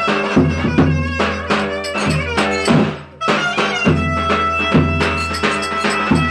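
Turkish folk dance music (oyun havası): a sustained melody instrument over a steady drum beat, with a brief break about three seconds in.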